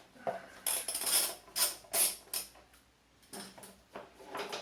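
Hand tools and metal parts clinking and scraping while a cover is unbolted from a motorcycle: an irregular run of short clicks and rattles, some in quick succession.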